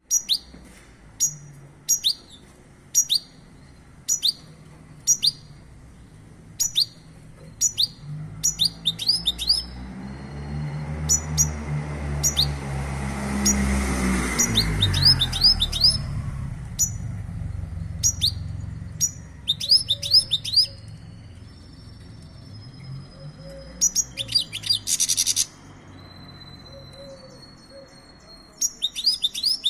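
European goldfinch calling: sharp single chirps about once a second, breaking into fast twittering song phrases with trills, held whistled notes and buzzy bursts later on. A low rumble swells and fades in the middle.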